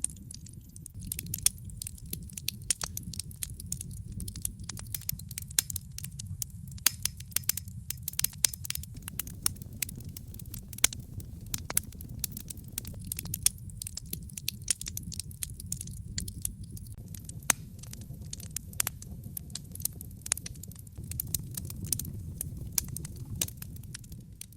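Wood fire crackling in a fireplace: frequent sharp pops and snaps, irregularly spaced, over a steady low rush of the burning fire.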